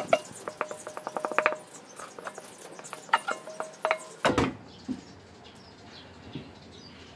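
A metal spatula scrapes crumbly rice-flour and tapioca dough from a metal bowl in quick, ringing, rattling strokes. The bowl knocks down sharply about four seconds in, and then comes the soft rustle of hands kneading the dry, crumbly dough on the table.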